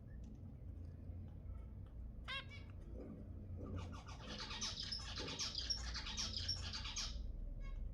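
Zebra finches calling: a single nasal call about two seconds in, then a dense, rapid run of chirping calls and song lasting about three seconds before it stops near the end.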